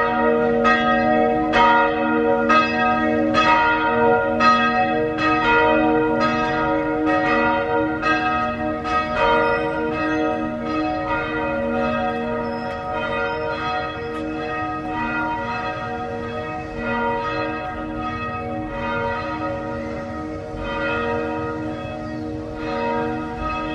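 Church bell ringing the evening bell, struck about once every three quarters of a second, each stroke ringing on into the next. The strokes grow fainter and less distinct in the second half.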